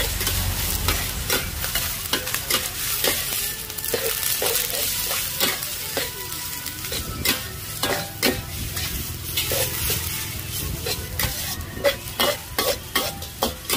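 Metal spatula scraping and clanking against a steel wok as pad thai noodles are stir-fried, with steady sizzling underneath. The strikes come irregularly and crowd closer together near the end.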